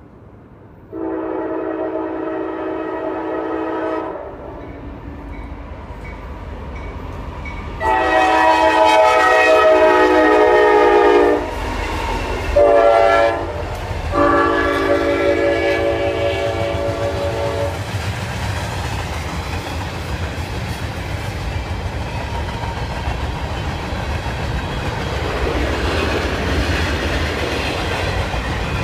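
CSX freight locomotive horn sounding the grade-crossing signal, starting about a second in: two long blasts, a short one and a final long one. After the horn the train passes with a steady low noise of wheels on rail.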